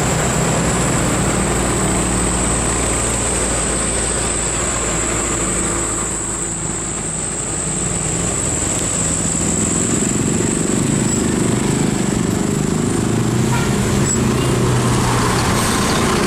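Road traffic noise: a large vehicle's engine running steadily with a constant thin high whine over it.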